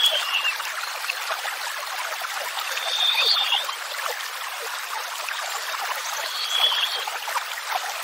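Running water splashing steadily, with a songbird giving a short high whistled phrase about every three seconds: near the start, about 3 s in and about 6.5 s in.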